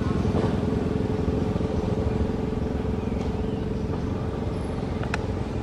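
A motor vehicle's engine running steadily, a low rumble with a steady hum, and a single short click about five seconds in.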